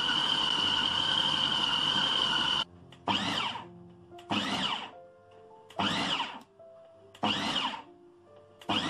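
Food processor grinding minced pork into a smooth paste: the motor runs steadily with a high whine, stops about two and a half seconds in, then is pulsed five times, each pulse a short whirr that spins up and dies away, about a second and a half apart.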